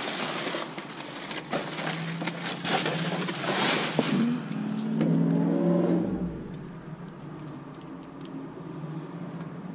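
Plastic film and bubble wrap crinkling and rustling as a hand digs through a dumpster of packaging waste, for about the first five seconds. Around five seconds in, a brief low pitched rumble rises over it, then the rustling goes quieter over a steady low hum.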